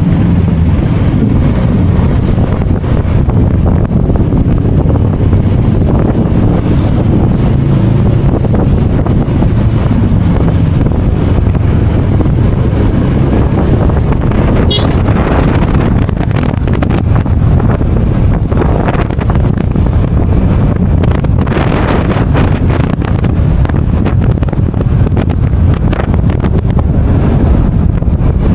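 Wind rushing over the microphone of a moving motor scooter, a loud steady rumble with the scooter's engine and tyre noise underneath. A few brief stronger gusts come in the second half.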